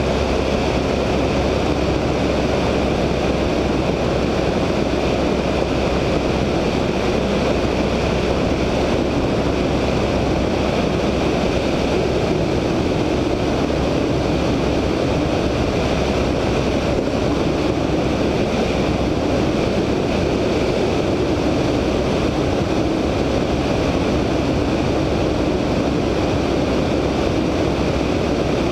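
Steady in-flight drone of a VL Viima II biplane's Siemens-Halske Sh 14A seven-cylinder radial engine and propeller, mixed with heavy wind rush on a wingtip-mounted microphone.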